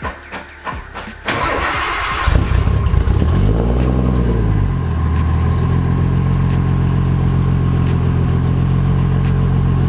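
Nissan RB25DET turbocharged straight-six in a 240SX being started: a run of quick clicks, then the starter cranks for about a second, the engine catches, its revs rise and fall, and it settles into a steady idle. The start is a test of a starting problem the owner hopes a new battery-to-block ground wire has cured.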